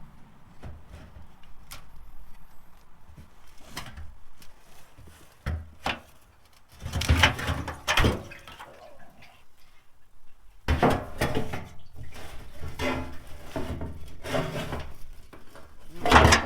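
Intermittent metal clinks, clanks and rattles of steel fuel-tank straps, nuts and bolts being handled and fitted under a pickup truck. The clatter comes louder about seven seconds in, again around eleven seconds, and near the end.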